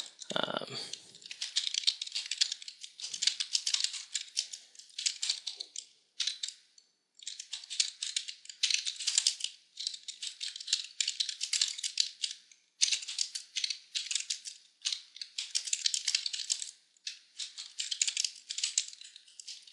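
Computer keyboard typing in fast runs of keystrokes, broken by a few short pauses.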